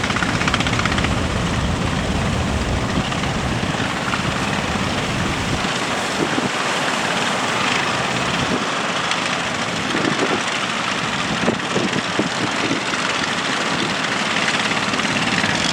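Strong wind rushing over the microphone along with the wash of big waves, a steady loud roar. The heavy low rumble of the wind eases about five and a half seconds in, leaving a hissing rush with a few small knocks.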